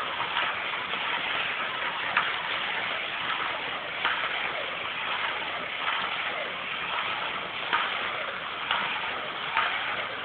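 Toy slot car's small electric motor whirring steadily as it runs around a plastic track, with sharp clicks every second or two.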